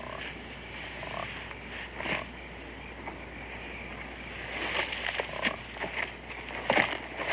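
Night woods ambience: frogs croaking and a cricket chirping about three times a second, with brief rustles and knocks of movement that come more often in the second half.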